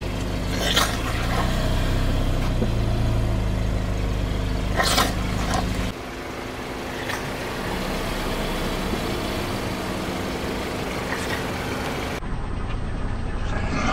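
Car engine idling with a steady low hum, with a few brief sharp clicks, one about a second in, one about five seconds in and one near the end.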